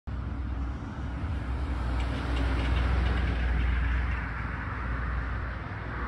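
Street traffic: a motor vehicle passing, a low rumble with road noise that swells through the middle and eases off near the end.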